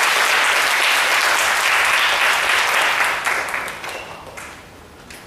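Congregation applauding; the clapping thins out and dies away from about three seconds in.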